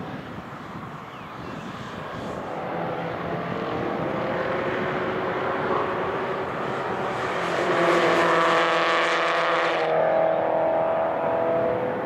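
Engines of several racing cars passing one after another, their notes overlapping and building to the loudest pass about eight seconds in. A sharp, rasping edge on that pass stops suddenly near ten seconds, and another car's engine note carries on.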